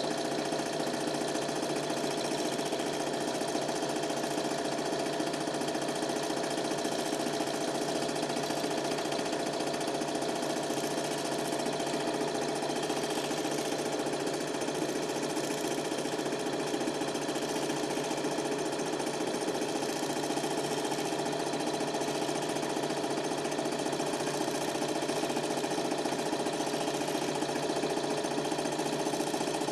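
Super 8 film projector running: a steady mechanical whirring rattle from its film drive, unchanged across the whole stretch.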